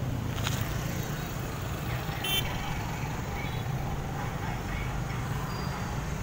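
Road traffic noise from vehicles on the street: a steady low rumble, with a short high-pitched squeak about two seconds in.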